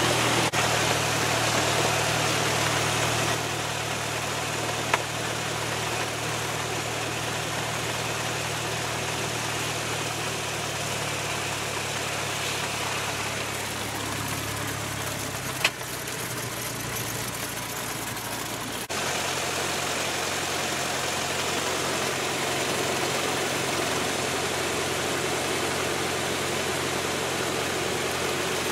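Piston engine and propeller of a 1960s four-seat light airplane running steadily at low power, heard inside the cabin. There is a brief click twice, and the engine note shifts abruptly about two-thirds of the way in.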